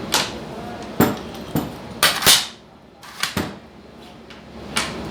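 Nail gun and its nails being handled: a string of irregular sharp clicks and knocks, the loudest about two seconds in.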